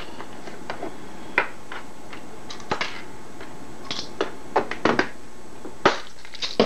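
Scattered small clicks and taps of a plastic pill bottle and its cap being opened and handled, about ten in all, over a steady hiss.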